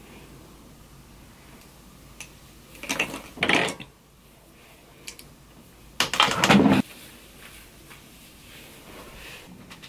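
Two brief scuffing noises of a person moving, each under a second and about three seconds apart, over faint room hiss.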